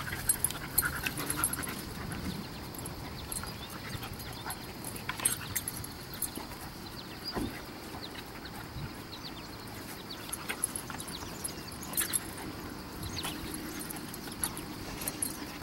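A Siberian husky and a young boxer playing: dog panting, with short scuffling clicks and knocks scattered throughout.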